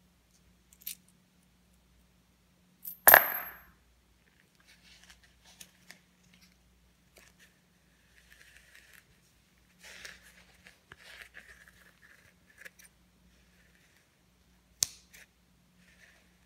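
A coin dropped onto carpet with a loud clink and a brief high ring about three seconds in. It is followed by faint rustling and handling of a plastic six-pack ring holder, and a sharp click near the end.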